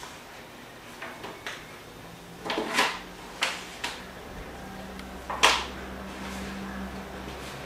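Spatula knocking and scraping against a plastic mixing bowl as thick carrot cake batter is worked out into a foil baking pan: a series of short, sharp knocks, the loudest about five and a half seconds in.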